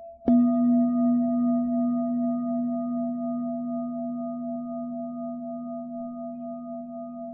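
A bell struck once, about a third of a second in, over the fading ring of an earlier strike. Its deep tone and higher overtones ring on with a slow wobble and fade gradually.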